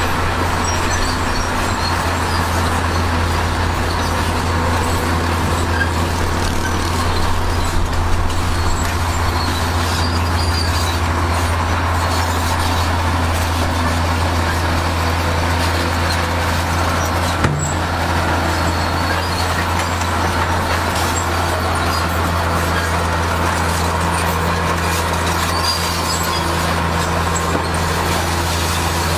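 Heavy diesel earthmoving machinery running steadily under load, a deep even engine drone with one sharp knock about two-thirds of the way through.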